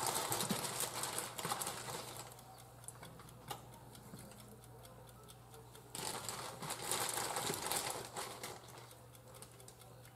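Clear plastic bag crinkling and rustling as raw shell-on shrimp are taken out of it and laid in a baking pan, in two bursts of about two seconds each: one at the start and one about six seconds in. A low steady hum runs underneath.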